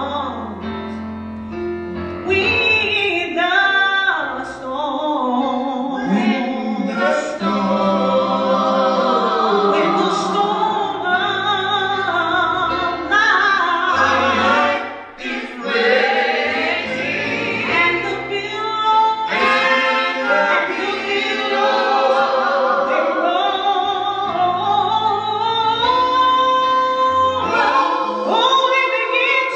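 A small vocal group of women's and a man's voices singing a gospel song, sustained and continuous, with a brief break in the singing about halfway through.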